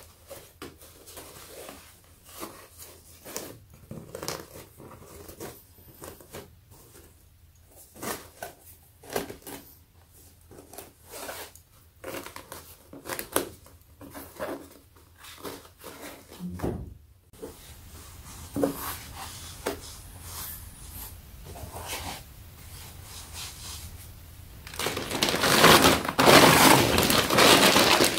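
Rustling, crinkling and light knocks of packaging and a collapsible white storage box being unpacked and unfolded by hand, with a louder, denser rustle near the end.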